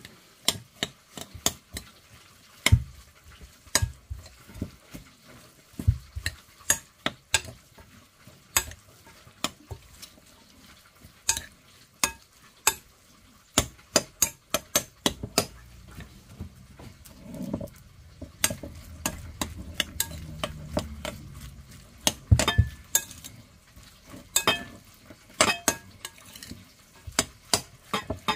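Metal spoon stirring a chopped-vegetable mixture in a glass mixing bowl, with frequent sharp, irregular clinks of spoon against glass, several a second.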